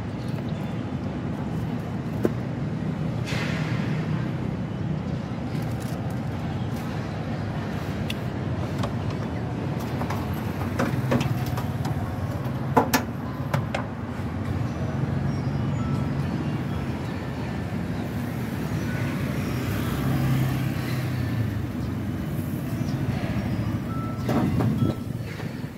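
Street traffic: a steady low rumble of passing vehicle engines, with a few sharp clicks and knocks about halfway through.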